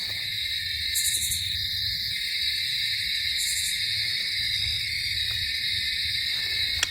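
Steady chorus of night insects, a continuous high buzz, with two brief higher bursts about one and three and a half seconds in, over a low rumble.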